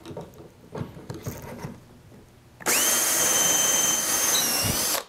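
Cordless drill boring a pocket hole through a pocket-hole jig into the board. A few knocks and clicks come first as the drill is set in the jig. About two and a half seconds in, the drill spins up and runs at steady high speed with a whine for about two seconds, its pitch dipping slightly just before it stops.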